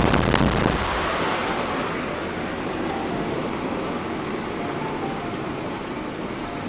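Steady road and wind noise from a moving car, with loud buffeting in the first moment that dies down by about a second in.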